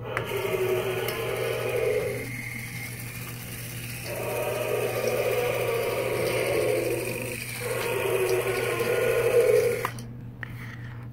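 Small electric motor and plastic gears of a walking toy T-rex whirring as it steps, in three stretches with a pause about two seconds in, a short break near seven and a half seconds, and a stop about ten seconds in.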